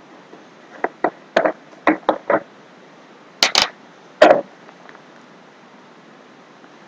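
A lid being taken off a container: a quick run of about ten light clicks and knocks over some three seconds, the last two the loudest.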